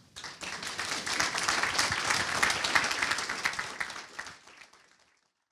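Audience applauding: the clapping swells within the first second, holds, and fades away near the end.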